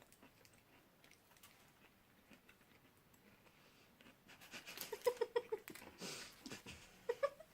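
Faint chewing of a crisp, crunchy Butterfinger peanut-butter candy bar, with scattered small crunches and clicks; about halfway through the chewing gets louder, mixed with a few short vocal sounds and a breath.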